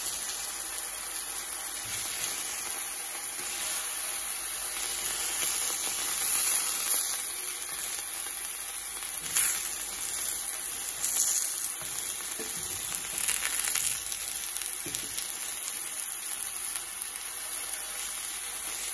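Steak and black pudding sizzling steadily in oil in a cast iron skillet, with a few brief louder moments as tongs move the steak in the pan.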